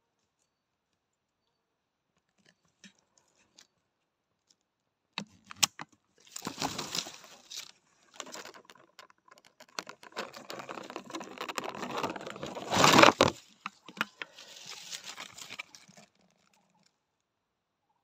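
Dry leaves and brush rustling and crunching in irregular bursts, starting with a couple of sharp clicks about five seconds in and loudest around thirteen seconds.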